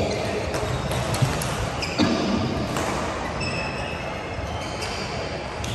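Badminton racquets striking shuttlecocks: sharp cracks about every second, echoing in a large hall. A few high shoe squeaks on the court floor come in the second half.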